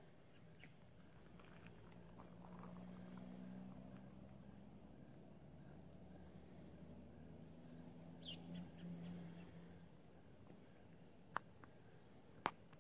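Faint pond-edge ambience: a steady high insect drone, with one down-slurred bird call about eight seconds in. Two short sharp clicks come near the end.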